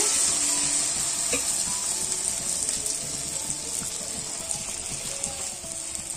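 A ladleful of rice-flour and jaggery batter deep-frying in hot oil in a karahi: a loud, dense sizzle that slowly dies down as the cake sets.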